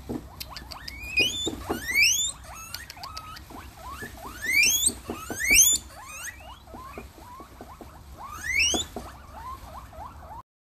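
Guinea pigs wheeking: about five loud, shrill whistles that rise steeply in pitch, with shorter squeaks in between. The sound cuts off suddenly near the end.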